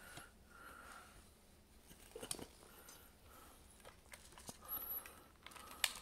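Faint rustling and a few light plastic clicks as a hand handles a plastic BD unit droid toy, with the sharpest click near the end as the droid's head is gripped.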